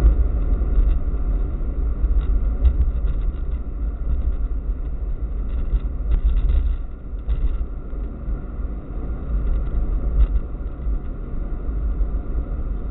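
A car driving at road speed, heard from inside the cabin through a dashcam's microphone: a steady low rumble of road and engine noise, dipping a little about seven seconds in.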